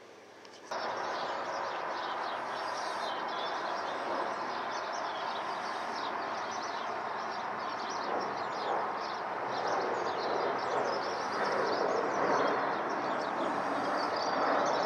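Jet engine noise of an Airbus A321 flying overhead, a steady rushing sound that cuts in abruptly just under a second in and slowly grows louder. Small birds chirp rapidly over it throughout.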